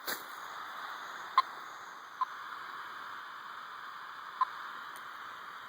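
Radio telemetry receiver hissing with static, broken by three short beeps: the pulses from the tracked timber rattlesnake's radio transmitter coming through, a signal described as really strong.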